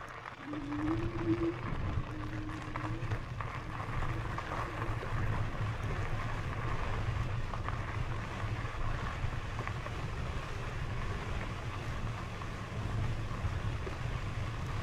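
Steady wind rush on the microphone and rolling noise from an e-bike being ridden along the trail, with a faint steady whine over it. A short low tone sounds near the start.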